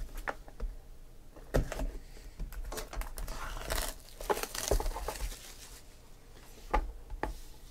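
Plastic shrink wrap crinkling and tearing as it is cut and peeled off a cardboard trading-card box, with a few sharp clicks and taps of the box between.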